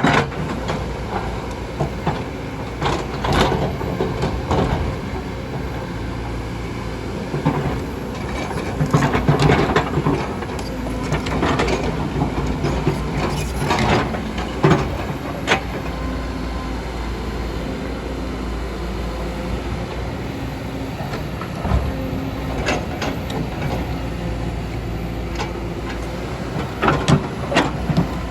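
Kobelco hydraulic excavator's diesel engine running steadily, with irregular clusters of sharp metallic clanks and knocks throughout.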